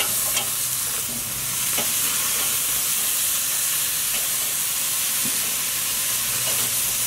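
Flap steak sizzling on the grate of a Weber charcoal kettle grill over hot coals, a steady hiss, with a few faint clicks of metal tongs as the meat is turned.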